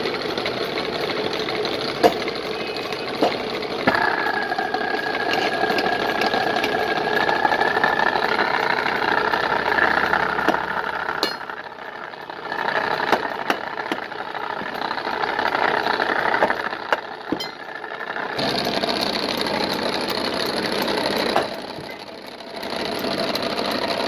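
Belt-driven wood lathe running steadily, its motor and spindle turning while the wood is worked; the sound changes abruptly a few times.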